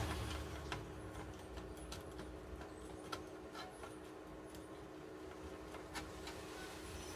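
Faint, scattered clicks and light taps of a metal tool touching the components of a laser printer's power circuit board, a few per second at most, over a steady low hum.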